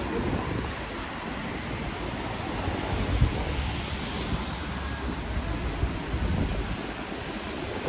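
Road traffic on a rainy city street: a steady hiss with the low rumble of vehicles passing, the loudest swell about three seconds in.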